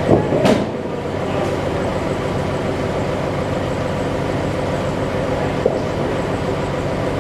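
Sawmill machinery running steadily with a continuous mechanical hum and rattle, with a sharp clank about half a second in and a lighter knock about five and a half seconds in.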